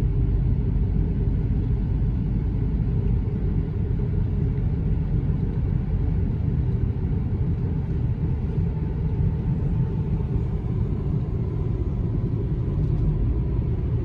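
Steady low rumble of a car driving along a road, heard inside the cabin: tyre and engine noise.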